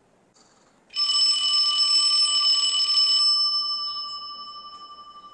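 Phone ringing with an old-style bell ringtone: one long ring that starts about a second in, rattles for about two seconds, then fades away.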